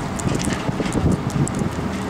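Wind buffeting the microphone over the low engine rumble of a diesel city bus pulling in slowly.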